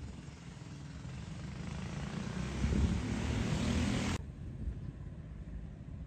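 Vehicle noise swelling to a peak and cutting off abruptly about four seconds in, over a steady low engine drone that carries on underneath.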